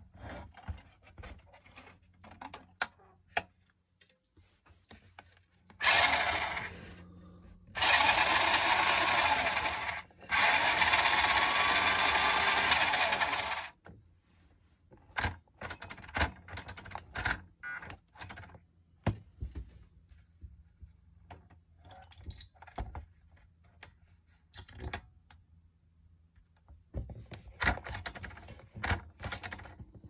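Vintage Nikko 19845BC radio-control Humvee's electric drive motor and gearbox running in three bursts of a few seconds each, spinning the wheels freely with the truck upside down, being tested from the transmitter. Between the runs come clicks and short whirs.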